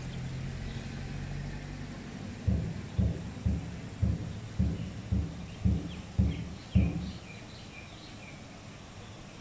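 Footsteps of someone walking with a handheld camera, picked up as about nine low, evenly spaced thumps, about two a second, which stop about seven seconds in.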